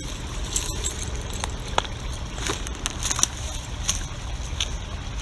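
Footsteps crunching through dry grass and brush, a string of irregular crackles and snaps over a steady low wind rumble on the microphone.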